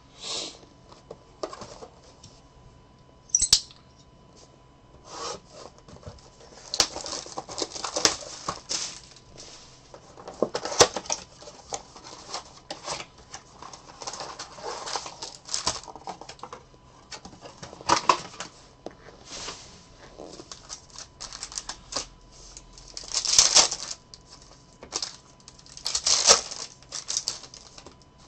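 A cardboard trading-card blaster box being torn open and its wrapped card packs handled: irregular crinkling, tearing and rustling of cardboard and plastic wrap.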